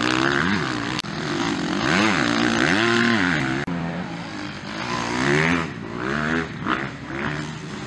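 Motocross dirt bike engines revving hard, their pitch rising and falling again and again as the riders open and close the throttle and shift through corners. The sound drops out for an instant twice, about a second in and near the middle.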